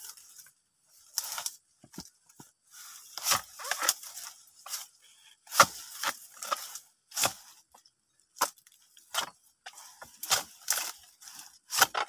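Long-handled harvesting chisel chopping into the fibrous frond bases and fruit-bunch stalk of a young oil palm to cut the ripe bunch loose: more than a dozen sharp strikes into the palm wood, irregularly spaced about half a second to a second apart.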